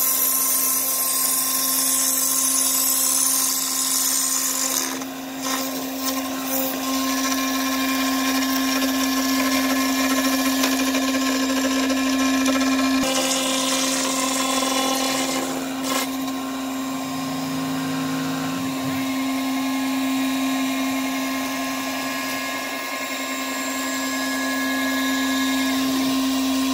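DIY CNC router spindle milling a 3form Chroma plastic panel with a 1/4" solid-carbide single O-flute upcut end mill, running continuously with a steady hum and a hissing cutting noise. The hiss is strongest in the first few seconds.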